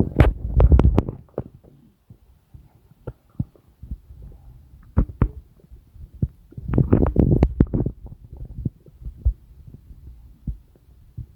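Human stomach and intestines rumbling, heard up close: irregular low gurgles with quick pops and clicks. The gurgling comes in louder spells at the start and again around seven seconds in, with quieter bubbling between.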